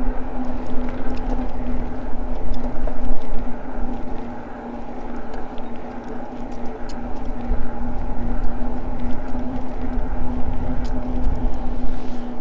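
Eahora Juliet e-bike riding along at a steady speed. Wind rushes over the microphone, and a steady, even-pitched electric motor hum runs throughout.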